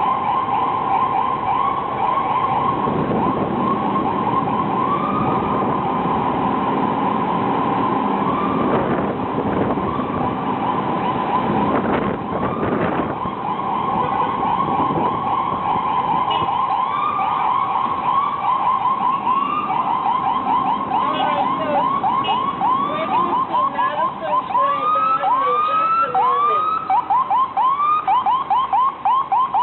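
Ambulance sirens sounding in traffic, several overlapping, their pitch sweeping up and down over and over, over a low traffic rumble in the first half. Near the end the sweeps come faster, as a quick yelp.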